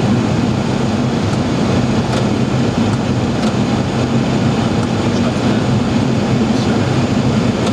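Steady flight-deck noise of a Boeing 737 Classic on final approach: an even rush of air and air conditioning over a low, constant hum.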